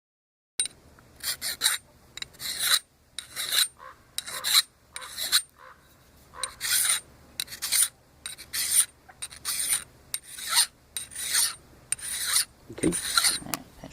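Steady hand filing on a tomahawk head: repeated back-and-forth rasping strokes, roughly one every three-quarters of a second.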